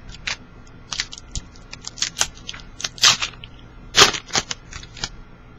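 Trading cards and their foil pack being handled: a run of short, irregular rustles and crisp snaps as cards slide and the pack is opened, loudest about three and four seconds in.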